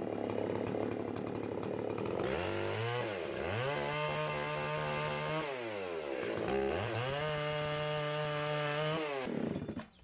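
Old Husqvarna two-stroke chainsaw, its carburetor just re-tuned, running at high revs and cutting into a log for about the first two seconds. It then revs up and down several times, holding steady high speed in between, and stops just before the end.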